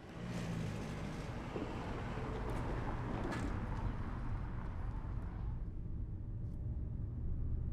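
Car driving slowly: a steady low engine and road rumble, with a broader rushing hiss that fades out about five and a half seconds in.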